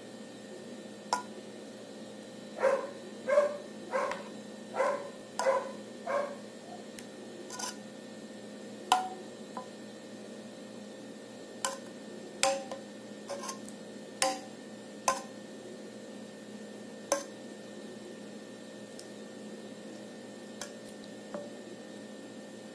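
A metal spoon clinking against a metal pot and a metal loaf pan while spooning liquid agar. A run of about six ringing taps comes a few seconds in, then scattered single clinks follow, over a steady low hum.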